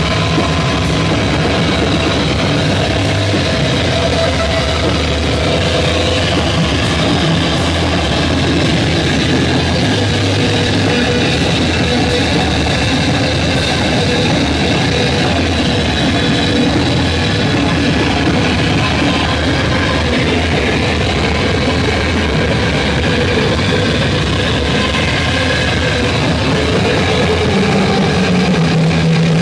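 A rock band playing live and loud without a break: amplified electric guitar over drums, with held low notes that change every few seconds.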